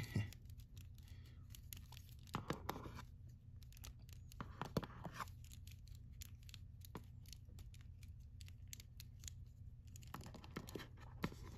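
Faint handling noise from a plastic action figure, a Hasbro Lightning Collection Dino Charge Green Ranger, as it is posed: scattered small clicks and a few brief scrapes of plastic on plastic and skin, over a low steady hum.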